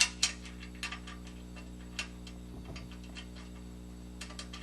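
Light metallic clicks and taps of a lock washer and nut being fitted onto the strut rod bolt by hand: two sharp clicks at the start, then scattered softer ones, over a steady low hum.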